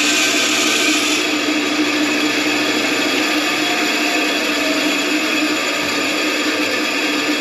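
Bandsaw running, its blade cutting a plastic sheet. About a second in the cut ends and the high hiss drops, and the saw runs on freely with a steady hum.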